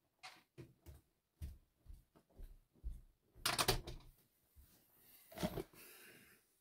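Irregular soft knocks and footsteps as a person comes back to the desk, then clothing brushing close against the phone's microphone and a thump as he settles into a leather office chair, followed by a short faint hiss.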